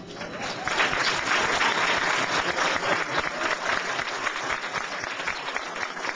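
Wedding guests applauding. The applause swells about half a second in and is at its fullest over the next couple of seconds, then carries on a little lower, with single claps standing out toward the end.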